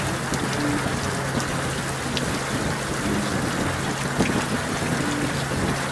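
Heavy rain and wind rushing on a motorcycle rider's helmet camera microphone while riding, over the steady low hum of a Honda Gold Wing GL1800's engine.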